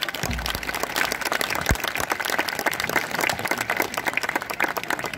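Stadium audience applauding: dense, steady clapping from the crowd in the stands.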